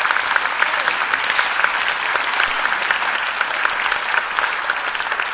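An audience applauding, with many hands clapping steadily. The claps of someone close by stand out at about four a second.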